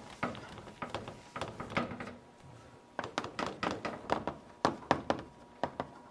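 Chalkboard eraser wiping the board, then chalk writing on a chalkboard: after a short lull, a dense run of sharp taps and short scratches from about three seconds in as characters are written.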